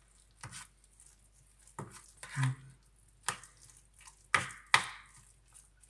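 A fork knocking and scraping against a stainless steel bowl while a soft mascarpone and wild garlic mixture is stirred by hand: irregular sharp clicks about once a second, the loudest two close together near the end.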